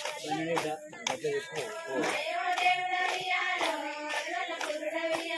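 A group of women clapping their hands in a steady rhythm to a Bathukamma folk song, with the singing voices carrying a held melody over the claps.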